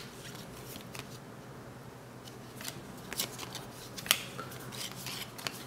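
Basketball trading cards being flipped through by hand, each card slid off the top of a stack: short papery swishes and taps roughly once a second, the sharpest about four seconds in.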